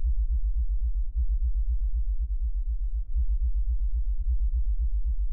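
Deep, low rumbling drone with a fast, even throb: the dark sound design of a horror film.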